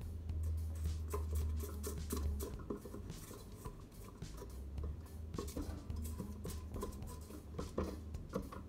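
Spatula scraping down the inside of a stainless steel stand-mixer bowl: irregular soft scrapes and taps against the metal, over a low steady hum.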